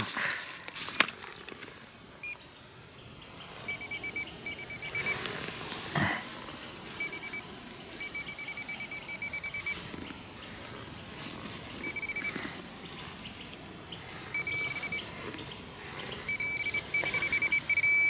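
Handheld pinpointer probe beeping in rapid runs of short, same-pitched beeps as it closes on a metal target in the soil, the runs coming more often and longer toward the end. A single knock about six seconds in.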